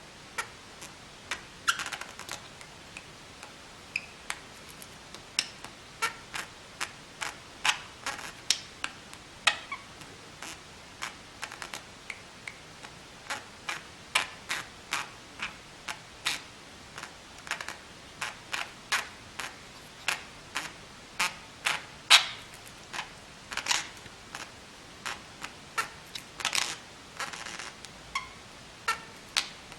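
Pet budgerigars squeaking just after waking: many short, sharp squeaks in an irregular run, a few every second, some louder than others.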